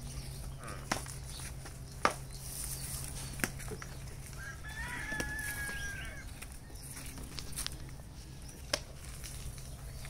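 A rooster crowing once, about five seconds in, over a steady low hum, with a few sharp clicks scattered through.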